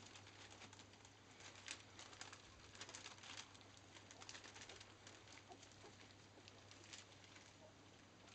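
Faint wet lapping and smacking of a litter of young Labrador puppies eating soft food from a shared steel pan, as many quick small ticks, with a couple of tiny squeaks near the end.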